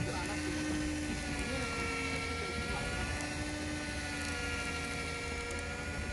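Electric fishing reel's motor winding in line with a steady whine.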